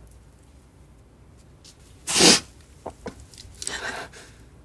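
A woman crying: one sharp, breathy sob about two seconds in, then a softer sobbing breath near the end.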